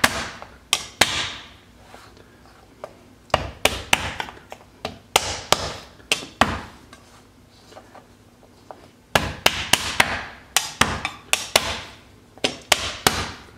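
Chef's knife chopping and mashing fresh ginger on a wooden cutting board: bursts of quick, sharp knocks with short pauses between, the longest run of rapid chops near the end.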